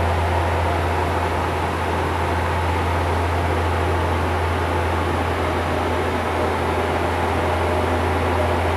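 Bombardier Q400 cockpit noise in cruise: its two Pratt & Whitney PW150A turboprops and six-blade propellers give a steady low drone over a constant hiss, unchanging throughout.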